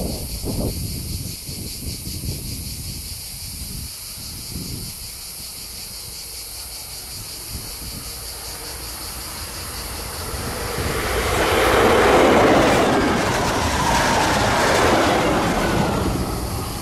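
A train approaching and passing close by on the line, growing louder from about ten seconds in, loudest around twelve seconds, and easing off near the end.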